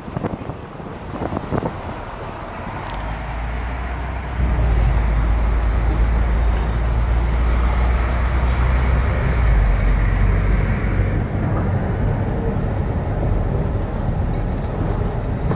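Running noise of a sightseeing bus with the street traffic around it, heard from the open upper deck. A deep low rumble comes in about three seconds in and grows louder a second or so later.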